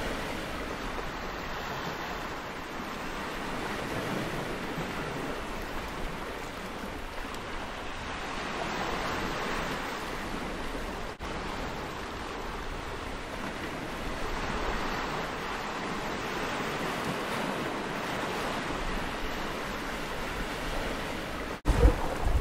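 Small waves washing in and breaking over boulders on a rocky sea shore, a steady hiss of surf. Near the end, gusts of wind start buffeting the microphone.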